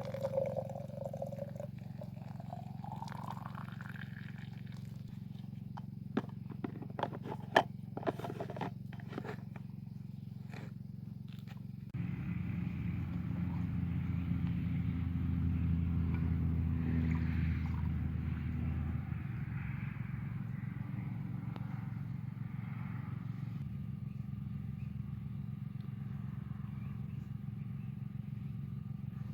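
An engine running with a low, steady hum, stepping up louder about twelve seconds in. A few sharp clicks come about six to nine seconds in.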